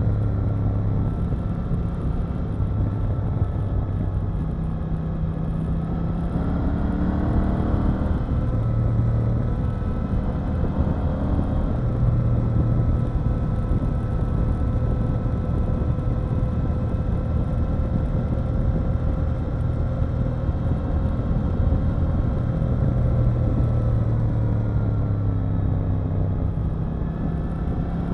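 KTM 890 Duke R's parallel-twin engine running under way on the road. Its pitch rises about a quarter of the way in, holds steady for a long stretch, then drops off near the end.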